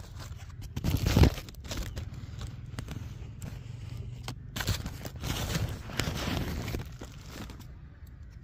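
Irregular rustling, crackling and scraping noises over a low rumble, loudest about a second in and again between about four and a half and seven and a half seconds in.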